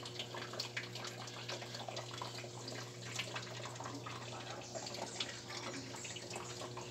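Top-loading washing machine washing a load of rugs: water sloshing and splashing in the tub over a steady low motor hum.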